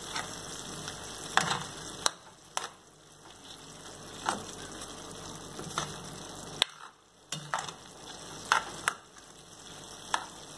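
Minced beef frying in a pan, with a cooking spoon stirring it and scraping and knocking against the pan every second or two.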